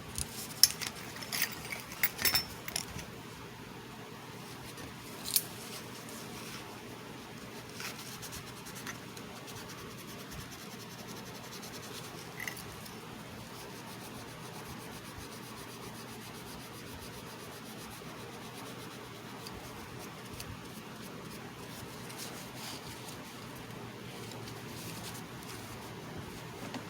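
A few sharp, small clicks and clinks, like hard little objects being handled or set down. They bunch in the first three seconds, with one more about five seconds in and a few faint ones later, over a steady faint hiss.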